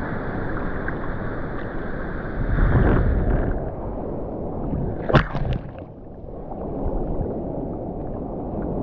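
Seawater sloshing and gurgling around a surfer's GoPro housing, with wind rumble on the microphone. A louder surge comes about two and a half seconds in, and a sharp splash comes a little after five seconds.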